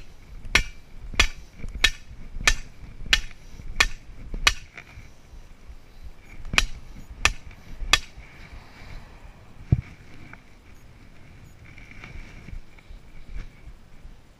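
Short-handled sledge hammer driving a stake into the ground: eight sharp, ringing blows about two thirds of a second apart, a pause, then three more, and a single duller knock a little later.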